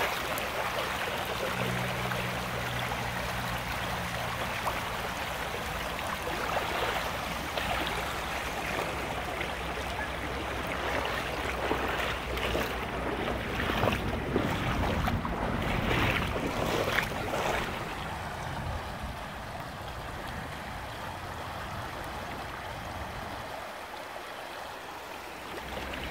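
Shallow rocky river running over stones, with the splashing steps of someone wading across through the water. A run of louder splashes comes a little past the middle, and after that only the steady run of water is left.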